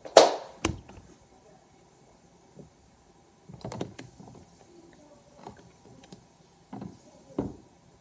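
Hunter Mayfair ceiling fan running with a faint steady hum, under a string of sudden knocks and clicks. The loudest is a sharp rustle and click within the first second, and more knocks come in a cluster about four seconds in and again near the end.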